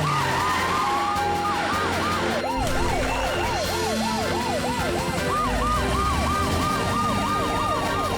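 Cartoon emergency-vehicle sirens sounding in quick rising-and-falling sweeps, about three a second, with a second siren overlapping from about five seconds in.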